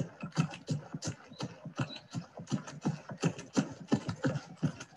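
A voice making quick, rhythmic breaths and mouth sounds, several a second, as part of a composed vocal soundscape of breathing and humming.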